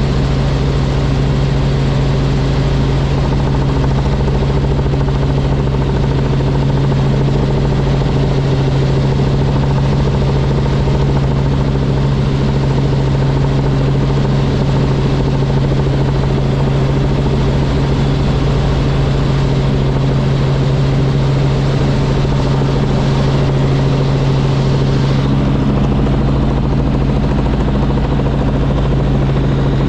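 Robinson R44 Raven II helicopter in flight: the steady drone of its six-cylinder Lycoming piston engine and rotors, with a strong low hum that holds constant throughout.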